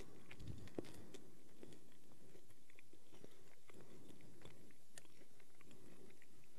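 A man faintly chewing a small communion wafer, with scattered soft mouth clicks.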